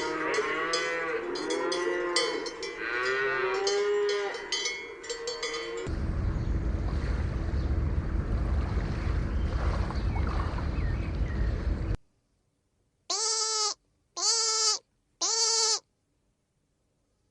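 Cattle lowing over one another while cowbells clink, followed by several seconds of steady rumbling noise. Then come three short, evenly spaced pitched animal calls about a second apart.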